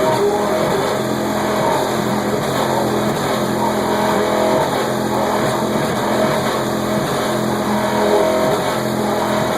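Rap music playing loud through a car stereo driving two Fi BL 12-inch subwoofers on about 2500 W RMS. The sound is dense, bass-heavy and distorted.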